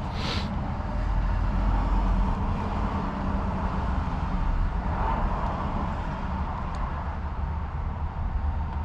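Steady low mechanical hum with no distinct knocks or changes.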